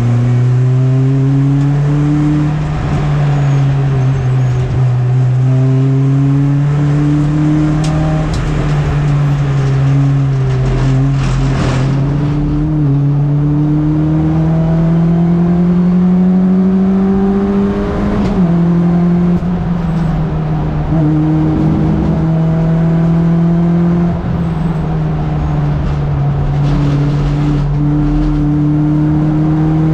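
Race-prepared MINI's engine heard from onboard at racing speed. Its note climbs under acceleration and falls back several times with gear changes and corners, with a sharp drop about 18 seconds in.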